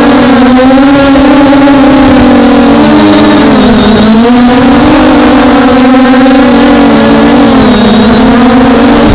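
MJX Bugs 5W quadcopter's brushless motors and propellers whining steadily, the pitch rising and falling every second or two as the motors speed up and slow down to hold the drone against gusting wind.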